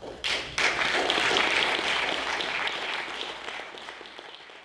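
Audience applauding, starting just after the speaker's thanks, loudest in the first two seconds and then fading out steadily.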